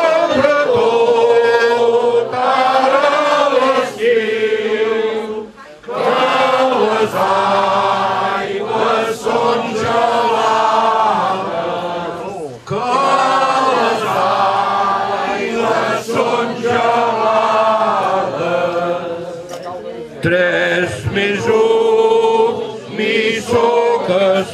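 A mixed group of men and women singing a song together, in phrases several seconds long with brief pauses between them.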